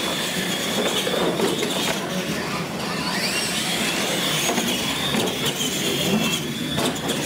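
Electric R/C monster trucks driving on a concrete floor: a high-pitched motor and gear whine that rises and falls with the throttle, over a steady noise of tyres and running gear.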